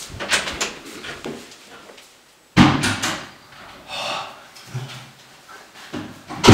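Doors being opened and shut: a few short clicks, then a sudden loud door bang about two and a half seconds in, followed by smaller knocks.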